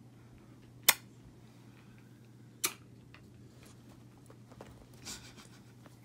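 Two sharp clicks, a little under two seconds apart, over a low steady hum.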